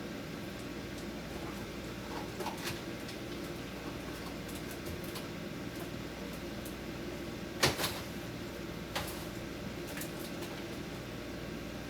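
A few knocks and clunks of items being set onto refrigerator shelves, the loudest about two thirds of the way through, over a steady low hum.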